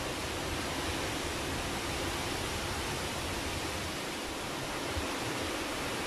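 Strong wind buffeting the microphone: a steady rushing hiss with an uneven low rumble underneath.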